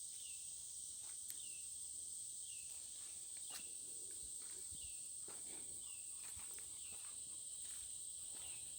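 Steady high-pitched insect chorus, a constant drone of crickets, with faint scattered clicks and rustles underneath.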